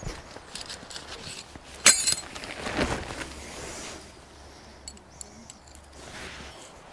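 Metal tent pegs clinking as a tent's fly sheet corner is pegged out. One sharp, ringing clink comes about two seconds in, followed by a short rustle and a few faint small clicks.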